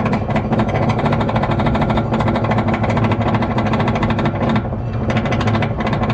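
Roller coaster train being hauled up a chain lift hill: rapid, even clacking of the lift chain and track ratchet over a steady low mechanical hum.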